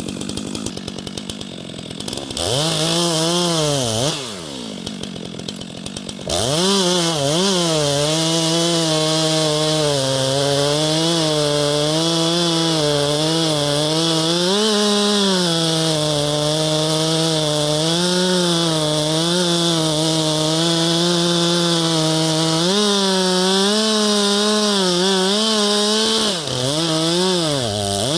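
Two-stroke chainsaw idling, revved briefly about two seconds in, then run at full throttle from about six seconds in while cutting into a tree trunk, its pitch sagging and recovering as the chain loads up in the wood. It briefly drops off throttle near the end.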